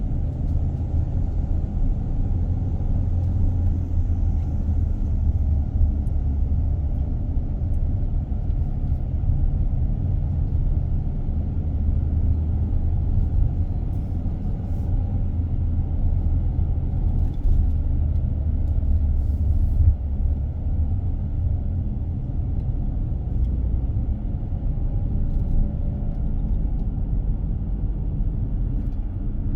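A car driving along a road: steady low rumble of engine and tyre noise that holds even throughout.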